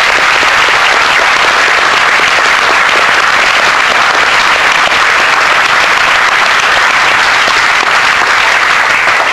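Audience applauding steadily, a dense sustained clapping that dies away at the very end.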